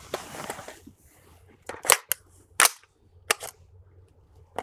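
AR-15 rifle being made ready: a rustle, then about six short, sharp metallic clacks from about a second and a half in, as a magazine is seated and the charging handle is worked to chamber a round.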